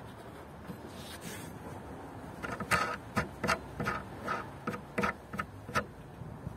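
Threaded adjustable foot of an IKEA Adils metal furniture leg being twisted by hand to unscrew and extend it. It makes a run of short scraping ticks, about two or three a second, starting a couple of seconds in.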